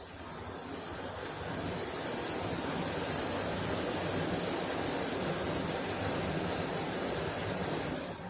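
Hitachi Beat Wash BW-V80A washing machine running, with a rushing, water-like noise that builds over about two seconds, holds steady, then drops away near the end.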